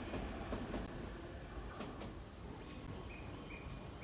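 Low rumble of a departing Tobu 100-series Spacia express train, dying away over the first second or so as it moves off. Short repeated high chirps begin near the end.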